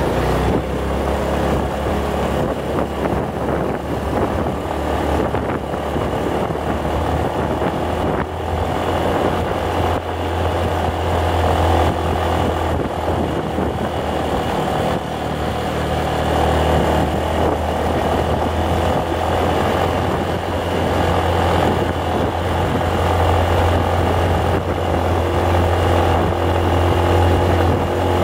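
Motorcycle engine running steadily as it rides along a road, a constant low hum with road noise over it.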